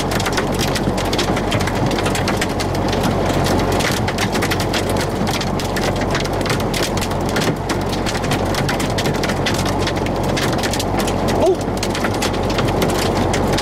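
Heavy rain drumming steadily on a vehicle's roof and windshield, a dense run of countless small sharp hits.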